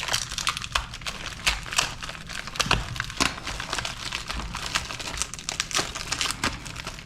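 Packaging crinkling and crackling in irregular bursts as small parts from a nitrous kit are handled and unwrapped.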